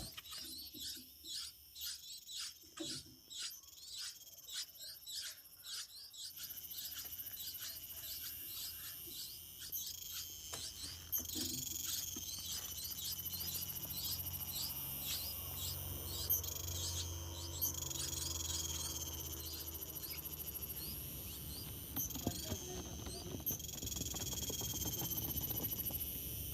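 A small bird chirping in a quick run of short falling chirps, about three a second. After about six seconds a steady high insect drone sets in, with scattered bird chirps over it.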